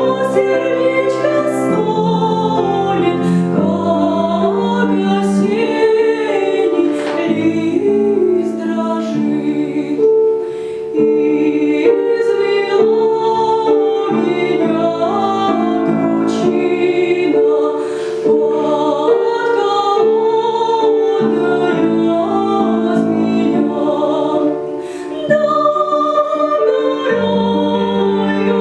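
A young woman singing in a trained classical style, with piano accompaniment. The voice holds long notes, with two brief dips in loudness that are breathing pauses between phrases.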